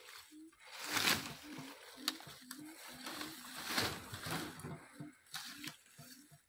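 Leafy bamboo plants and straw-wrapped root balls rustling and crackling as they are pushed and arranged in a cart, loudest about a second in and again near the middle. A short low hooting note repeats throughout.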